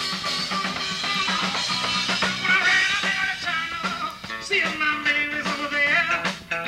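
Live blues-rock band playing: harmonica blown into the vocal mic, giving way about four seconds in to singing over electric guitar.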